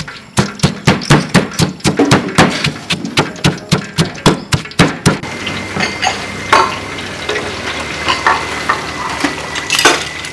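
Pestle pounding chili, garlic and sugar in a stone mortar: sharp, even strikes at about four a second, stopping about five seconds in. After that come softer clicks and stirring of a batter in a bowl, with a thin steady high tone.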